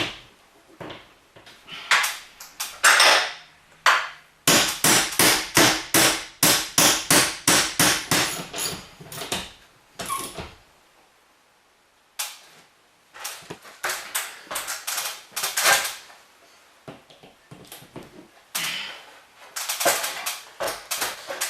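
Repeated sharp metallic clicks and knocks of hand tools as bolts are fitted to fix a garage door opener's metal mounting bracket. There is a fast run of strikes, about three a second, for several seconds, a brief pause near the middle, then more scattered knocks.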